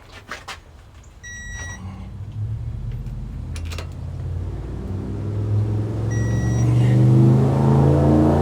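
An engine running and growing steadily louder, its pitch rising slightly, with two short high beeps about five seconds apart.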